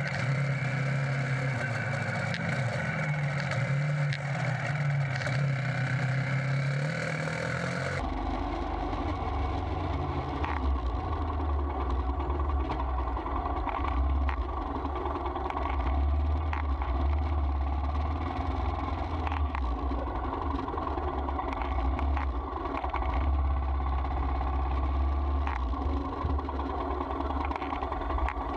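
Royal Enfield Himalayan's single-cylinder engine running steadily on the move, with road and wind noise, heard from a camera mounted on the bike. About 8 seconds in the sound changes abruptly to a deeper, steadier low rumble as the footage cuts to another ride clip.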